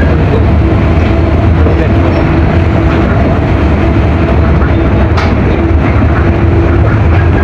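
Passenger train running, heard from inside the car: a loud, steady rumble with a faint hum.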